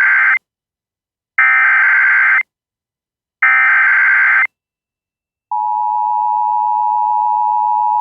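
Emergency Alert System broadcast tones. The end of one burst of warbling SAME data header is followed by two more, each about a second long and a second apart. These are the digital header that encodes the alert. About five and a half seconds in, the steady two-tone EAS attention signal starts and holds, announcing a tornado warning.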